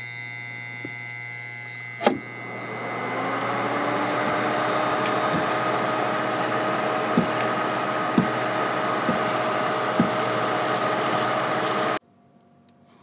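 A steady electrical hum, then a click about two seconds in as a small electric fan motor starts and spins up to a steady whir. Metal tongs tap against a non-stick frying pan a few times as kale is tossed. The sound cuts off abruptly near the end.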